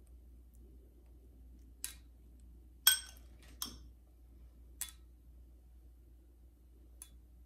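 Small metal spoon clinking against a glass bowl and a metal baking pan while spooning out crushed pistachios: five light, ringing clinks, the loudest about three seconds in.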